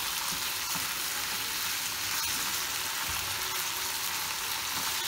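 Minced meat with chopped peppers and tomato sautéing in a frying pan, sizzling steadily while a wooden spoon stirs it.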